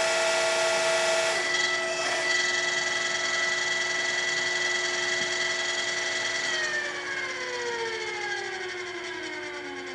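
1978 OOYA RE2-1300A radial arm drill's spindle gearing running at its top speed of 1985 RPM with a steady whine. About two-thirds of the way through, its pitch starts to fall as the spindle slows, while one steady tone holds.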